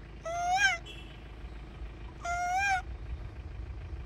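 Two short high-pitched animal calls, each about half a second long with a wavering rise and fall, the first about a third of a second in and the second about two seconds later, over the low rumble of a moving vehicle.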